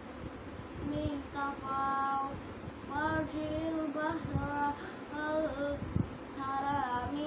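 A young boy's voice chanting Quran recitation in Arabic, drawing out long melodic notes in phrases broken by short pauses for breath.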